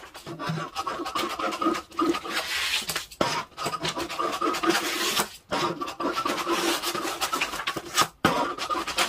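Large scissors cutting through stiff brown pattern paper in long, rasping cuts, broken by a few short pauses.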